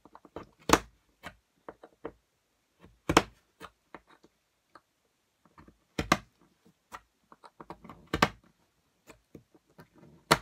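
Hand piercing tool of a We R Memory Keepers Sew Ribbon kit punched through cardstock along its guide ruler on a table: four sharp knocks every two to three seconds, with lighter clicks and paper rustles in between.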